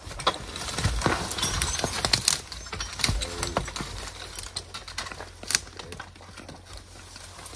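Belgian draft horses moving, their hoofbeats and scattered knocks coming irregularly, busiest in the first couple of seconds.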